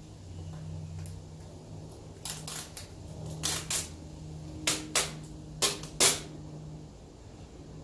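A run of short sharp clicks and crackles from tint film being worked onto a car's light lens, several in quick pairs and the last ones the loudest, over a low steady hum.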